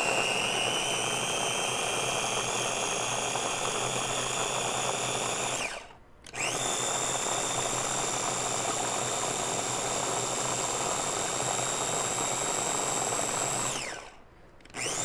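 Small Ninja chopper's motor blending blueberries, run by pressing down on its top: a steady high whine that spins up, cuts out about six seconds in, runs again for about seven seconds and winds down, then gives one short burst near the end.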